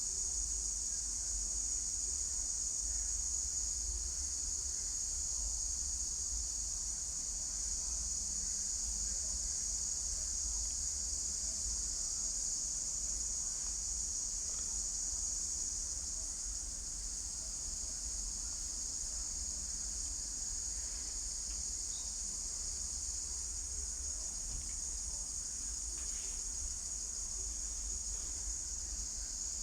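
Chorus of insects, such as crickets, giving a continuous high-pitched drone, with a steady low rumble underneath.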